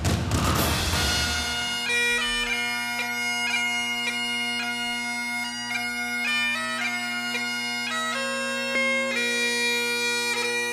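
Bagpipe music: steady drones held under a chanter melody that moves from note to note. It comes in as a noisy swell fades in the first second or so.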